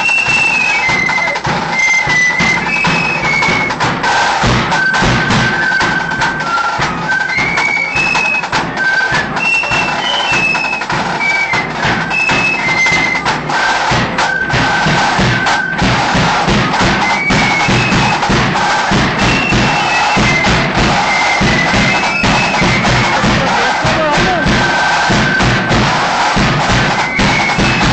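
Marching flute band playing a tune: a high flute melody of held and stepping notes carried over steady snare and bass drum beats, loud and close on a phone recording.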